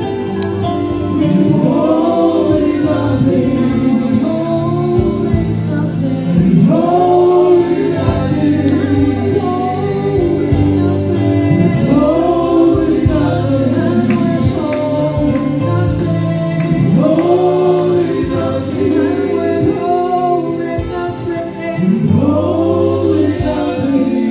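Gospel worship song sung by a group of voices, in long rising-and-falling phrases about every five seconds over steady held chords.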